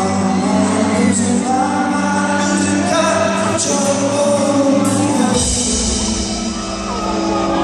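Indie rock band playing live with a male lead vocal, sung notes held and sliding over the band, and a heavier low end coming in about five seconds in.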